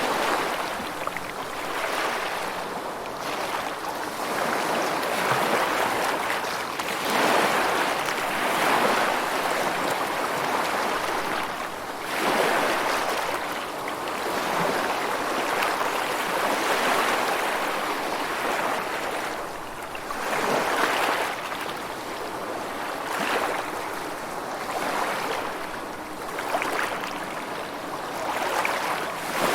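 Rushing water, a steady hiss that swells and eases every few seconds, with no music or tones over it.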